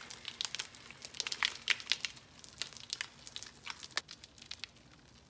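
Deflating rubber balloon peeling away from the inside of a dried papier-mâché bowl: an irregular crinkling of sharp little crackles as the balloon separates from the paper, busiest in the first few seconds and thinning out toward the end.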